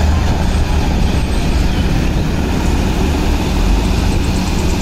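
Concrete mixer truck's diesel engine running steadily, a loud, even low rumble.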